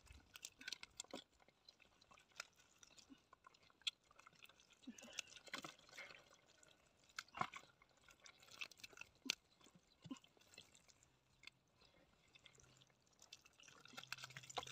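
Gloved hands digging into wet river mud: faint, irregular squelches and clicks.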